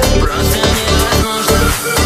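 Electronic dance music in a short break: the kick drum drops out while the synth chords carry on.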